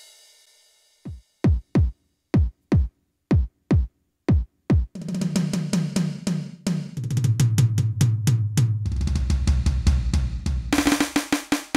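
Roland TD-8 electronic drum module playing its kit sounds. A ringing hit dies away, then single tom-like hits with a falling pitch come about two a second. About five seconds in, fast rolls step down from higher to lower drums, and bright cymbal and snare hits come in near the end.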